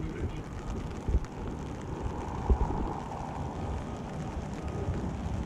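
Wind rumbling on the microphone, with a couple of brief thumps.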